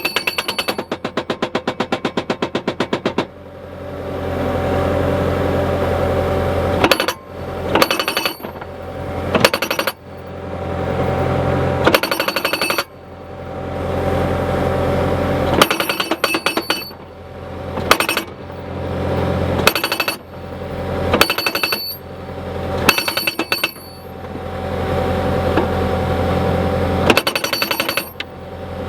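Hydraulic breaker-style post driver hammering a post in short bursts of rapid blows, with the skid steer's engine running and swelling under hydraulic load in the gaps between bursts.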